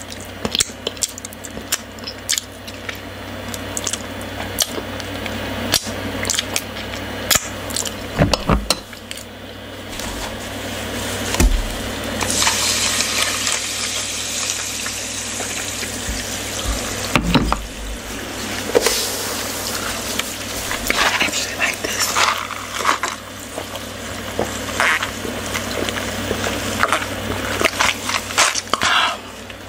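Close-miked mouth sounds of eating by hand and licking fingers. About twelve seconds in, water is poured from a glass bottle into a tall cup, a steady splashing fill lasting about seven seconds. Short mouth and cup sounds follow as the cup is lifted to drink.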